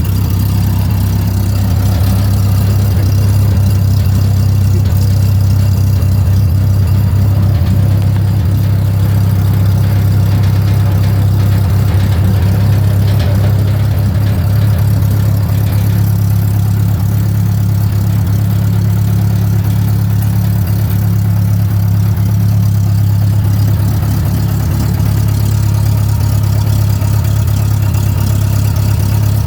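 Mayco concrete pump's engine running at a steady speed, a loud, even, deep hum with no change in pace.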